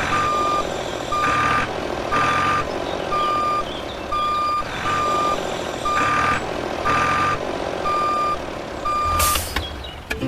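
Vehicle reversing alarm beeping at an even pace, one steady tone switched on and off, over a running engine-like hum, with a sharp knock about nine seconds in.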